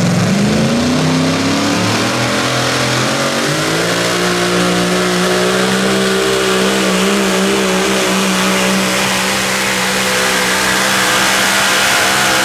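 Super modified four-wheel-drive pulling truck's engine at full throttle during a pull. The revs climb over the first few seconds, then hold at a high, steady pitch.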